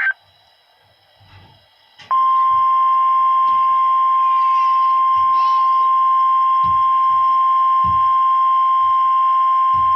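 NOAA Weather Radio warning alarm tone, the steady 1050 Hz alert tone, sent as part of a required weekly test. A single loud, unbroken high tone comes on about two seconds in, after a short near-quiet stretch.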